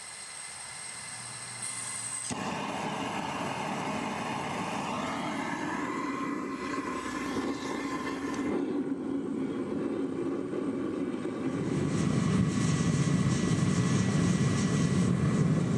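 Gas burner on a home-built foundry furnace: a high gas hiss, then about two seconds in the burner fires and runs with a steady, jet-like rush into the furnace while it heats a brass melt. The rush grows louder in the last few seconds.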